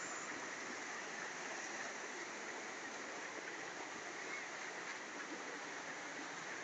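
Steady rushing of a small stream cascading over rocks.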